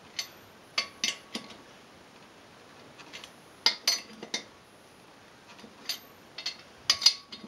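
Ratchet and 19 mm socket tightening steel-wheel lug nuts: sharp metal clicks and clinks in three short clusters, a few seconds apart.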